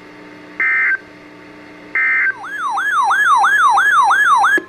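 Emergency Alert System tones from NOAA Weather Radio: three short, loud buzzy SAME data bursts about a second apart, the end-of-message code closing the previous warning. Then a siren-like electronic alert tone sweeps up and down about three times a second and cuts off suddenly near the end.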